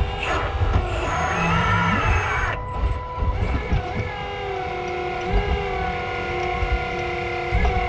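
Hydraulic pump and motor of a 1/8-scale 385CF RC excavator whining under load, its pitch shifting up and down as the load changes.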